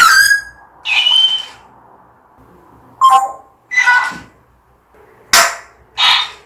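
African grey parrot giving six short, loud squawks and whistles with pauses between them. The owner takes the calls for anger.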